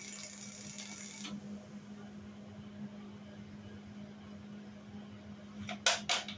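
Arc welding on a Jeep CJ7 frame during a body mount repair: a crackling hiss that cuts off about a second in as the arc stops, over a steady low hum. Near the end, two short loud bursts of noise in quick succession.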